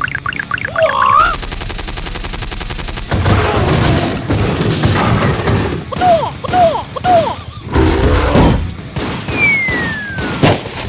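Cartoon sound effects: a rapid run of bangs and impacts, with three short rising-and-falling chirps about six seconds in and a falling whistle near the end.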